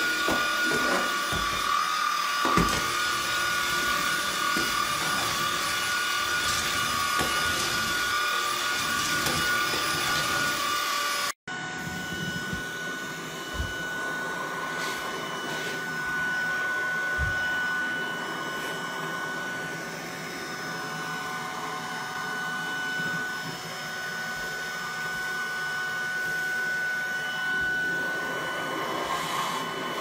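Tineco A10 cordless stick vacuum's brushless motor running steadily with a high whine, and a few low knocks. A little over a third of the way in the sound breaks off for an instant, then goes on slightly quieter with a single whine.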